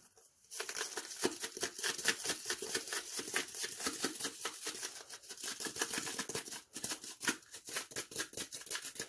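Onion powder being shaken out of a plastic spice shaker jar: a fast, continuous rattling of quick taps and granules for several seconds, starting about half a second in.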